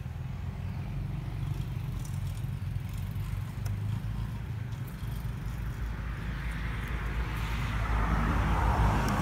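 Low, steady rumble of a motor vehicle, swelling louder near the end as it passes.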